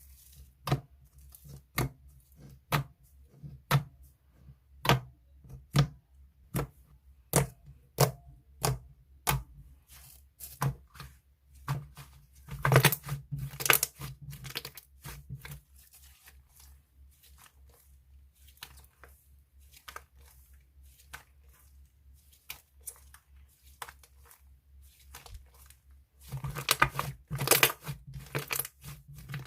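Slime being pressed and poked by hand, giving sharp pops and clicks about once a second, with two longer stretches of dense crackling squishes, one midway and one near the end.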